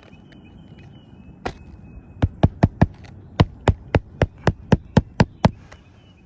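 Hammer driving roofing nails through an asphalt shingle: one strike, then a quick run of four and a steady run of about nine at roughly four a second.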